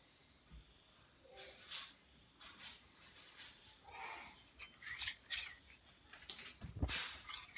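Steel blades of a handmade Japanese hedge shear scraping against each other as the shear is worked at its riveted pivot: a series of short metallic scrapes, with a louder knock near the end.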